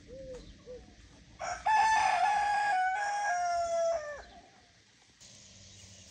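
A rooster crowing once: one long call of nearly three seconds that drops in pitch and breaks off at the end.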